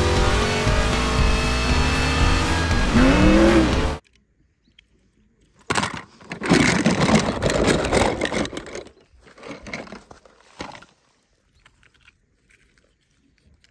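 Race car engine noise mixed with music, with one rising-then-falling rev near the end, cutting off abruptly about four seconds in. It is followed, from about six to nine seconds in, by a burst of noisy clatter.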